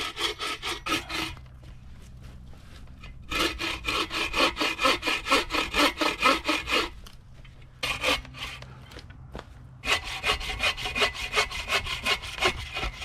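Hand saw cutting through firewood with quick back-and-forth strokes, in four runs broken by short pauses: a brief one at the start, a long one from about three seconds in, a short one near eight seconds, and another from about ten seconds on.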